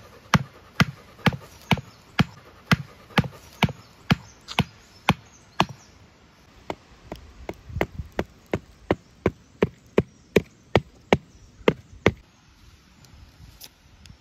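A wooden stick knocked repeatedly into hard, dry soil to bore a hole beside a fire pit: sharp, regular strikes, about two a second, then after a short pause near six seconds in a faster run of about three a second that stops about twelve seconds in.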